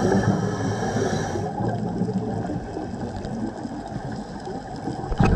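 Underwater ambience recorded through a dive camera: a muffled, rumbling water noise with crackle, and a short louder burst near the end.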